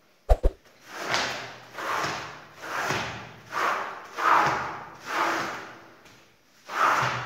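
A floor squeegee dragged in repeated strokes across a soaked pile rug on tile, pressing water out of it: two sharp knocks as it is set down, then seven swishing wet strokes, a little under one a second, with a short pause before the last.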